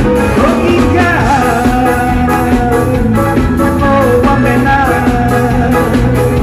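A man singing into a microphone over a live band with drum kit, amplified through a PA system, with a steady beat.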